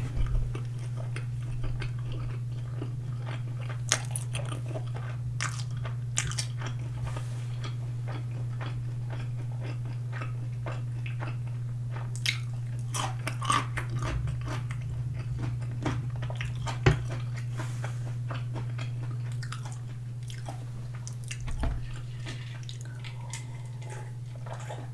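Close-miked chewing and biting of sauced boneless fried chicken, with irregular crunchy clicks and wet mouth sounds, over a steady low hum.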